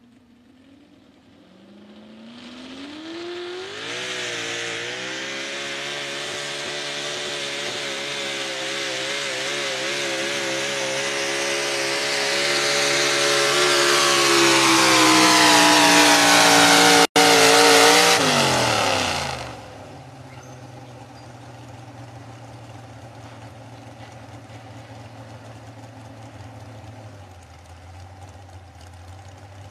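Chevrolet pro stock four-wheel-drive pulling truck's engine revving up about two seconds in, then running at full throttle with a wavering pitch as it drags the sled, growing steadily louder. About eighteen seconds in the driver lets off as the pull ends: the pitch drops quickly and the engine settles to a much quieter steady idle.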